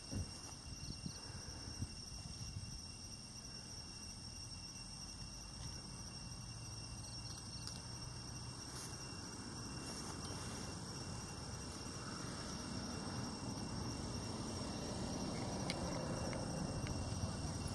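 Insects droning steadily in thin, high tones, over a low background noise that slowly grows louder toward the end.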